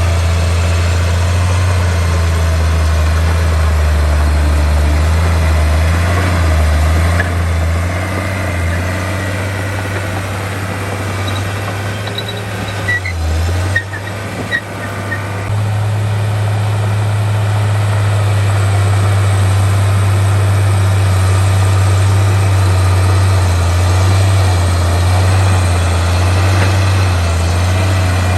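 Heavy diesel earthmoving machinery running with a steady low engine drone. The drone eases off for several seconds in the middle, with a few short clicks and squeaks, then comes back up.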